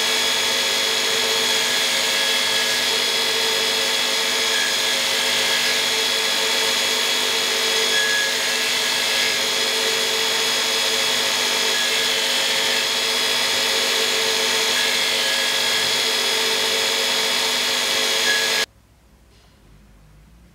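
Belt grinder running with a steel cutlass blade held against the belt: a steady grinding hiss over a steady motor whine. It cuts off suddenly near the end.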